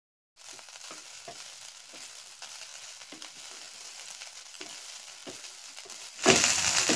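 Rice frying in butter in a nonstick wok, stirred with a wooden spatula: a faint sizzle with irregular small scrapes and taps of the spatula on the pan, starting about half a second in. Near the end the sizzling suddenly gets much louder.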